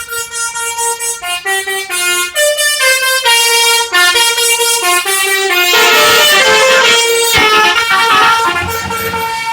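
Basuri 'telolet' musical bus horn playing a melody: a held note, then a run of short notes stepping up and down in pitch. It is loudest and fullest between about six and eight seconds in.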